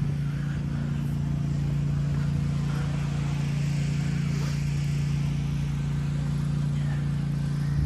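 A steady, unchanging low mechanical hum with a deep rumble beneath it.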